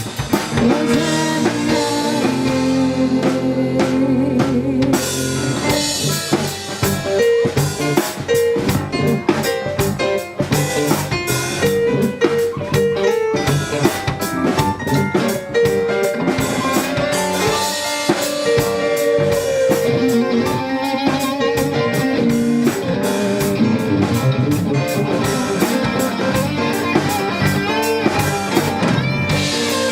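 Live rock band playing an instrumental passage: electric guitar over a drum kit, with held notes from the other instruments.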